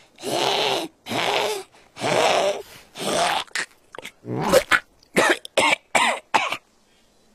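Cartoon cat hacking and retching to bring up a hairball. There are four long coughing heaves about a second apart, then a quicker run of short gagging hacks that stop a little after six seconds in.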